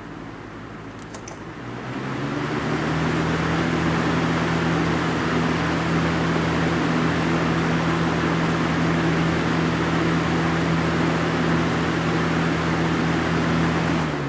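Electric box fan running. Its motor hum and air rush step up to a louder, steady level about two seconds in, as if switched to a higher speed, and it starts dying away at the very end.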